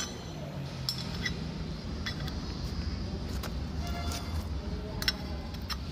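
Light metallic clicks and clinks, a few with a short ring, as a steel shaft with its bearing is handled and turned in the repaired cast bearing housing, over a steady low hum.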